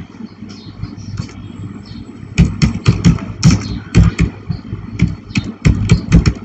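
Typing on a computer keyboard: a few light key taps, then from about two seconds in a fast, irregular run of key clicks, each with a low thump.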